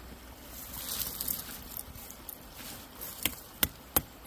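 Knife blade scraping into the cut in a small tree trunk, then quick hacking strikes of the knife into the wood, about three a second, starting a little past three seconds in.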